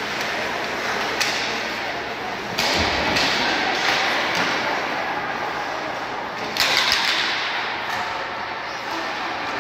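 Ice hockey play in a rink, with spectators' voices and skating noise throughout. Sharp knocks and thuds of sticks, puck and bodies against the boards; the heaviest thud comes about three seconds in, and a louder rush of noise follows about seven seconds in.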